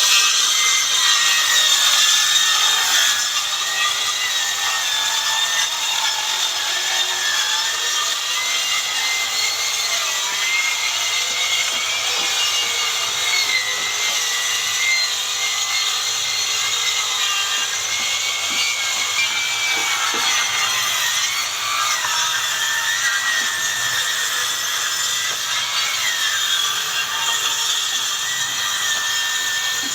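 Handheld electric circular saw cutting through wooden boards: a steady, loud rasp of the blade in the wood over a high motor whine that wavers slightly in pitch as the load changes.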